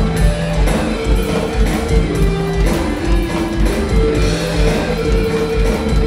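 Live Latin funk-rock band playing: an electric guitar line over bass and a steady kick-drum beat.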